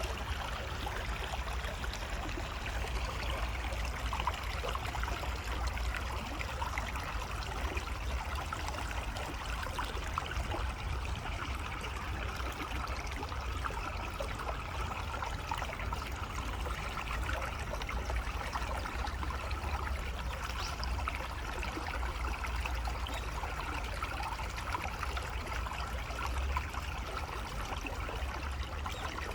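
Water flowing steadily, an even rushing splash with no breaks, over a low rumble underneath.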